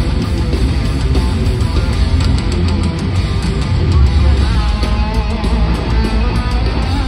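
Live thrash metal band playing at full volume: distorted electric guitars, bass and drums, with a lead guitar line bending in pitch about four seconds in.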